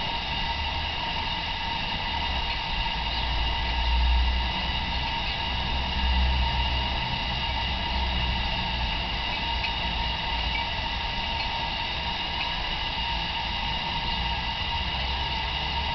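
A 5-inch gauge Sweet Pea live-steam locomotive stands in steam with a steady hiss and a faint steady whine, without any exhaust beat. Low rumbles swell briefly about four and six seconds in.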